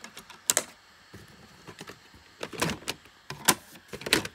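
Plastic DVD case being handled as the disc is pressed off its centre hub: a series of separate sharp plastic clicks and knocks.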